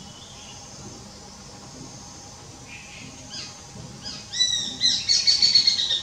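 A bird singing: a couple of faint calls, then from about four seconds in a loud, rapid run of quick chirping notes.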